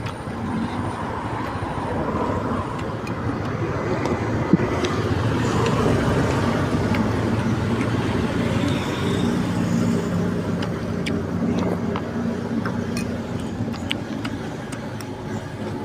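Road traffic: a motor vehicle's engine passes, growing louder toward the middle and fading near the end over a steady street noise.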